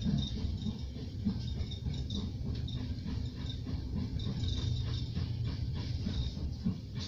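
Suburban passenger train running, heard from inside the carriage: a steady low rumble of wheels on rail, with a thin high squeal coming and going.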